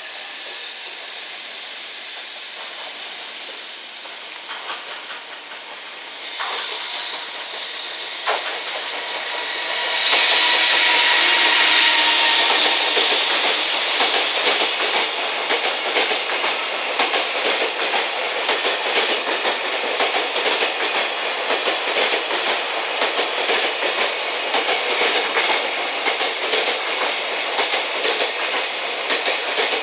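JR Freight EF210 electric locomotive hauling a container freight train, approaching and then passing close by, loudest about ten seconds in with a strong rushing hiss and a faint falling whine. A long string of loaded container wagons follows, rolling past with steady wheel noise and rhythmic clickety-clack over the rail joints.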